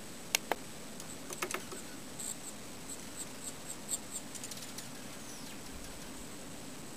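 Small birds at a feeder: a few sharp taps in the first second and a half, then a run of short, high call notes, about three a second, and one faint falling note.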